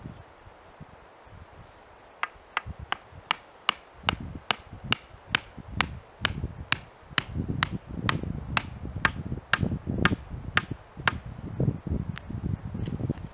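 A hatchet used as a mallet, driving a wooden peg into the ground: a steady run of sharp wooden knocks, about two to three a second, starting about two seconds in, with a duller thud under many of the blows.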